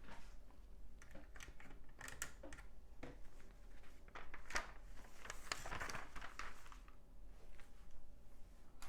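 Plastic LEGO bricks being handled and pressed together: scattered small clicks and taps, with a denser rustle of pieces being moved about five to six and a half seconds in.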